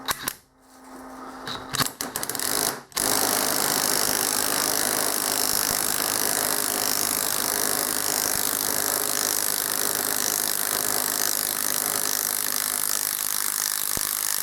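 A power tool drives the bolt of a pulley puller, pulling the pulley off a Ford power steering pump's shaft. It runs steadily for about eleven seconds, starting about three seconds in after a few short clicks as the tool is set.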